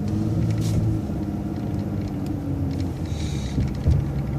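Transit bus running, heard from inside: a steady engine drone with road rumble. A short hiss comes about three seconds in, and a single knock follows just before the end.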